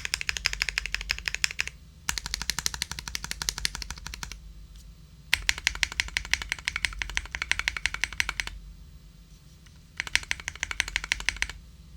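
Mechanical keyboard with lubed and filmed Gateron Yellow linear switches, typed on quickly in four bursts of rapid keystrokes with short pauses between them. The keyboard is an Epomaker GK68XS aluminium board with a polycarbonate plate and rubber foam.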